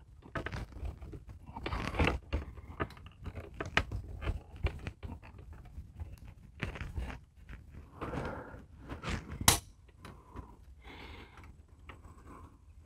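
Irregular clicks, knocks and rattles of an RV awning arm and its replacement gas spring being handled and fitted into place, with one sharp knock late on the loudest.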